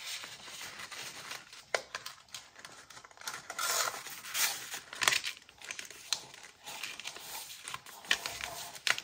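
A folded sheet of paper rustling and crinkling as hands wiggle one edge into two folded flaps, with a few short sharp crackles.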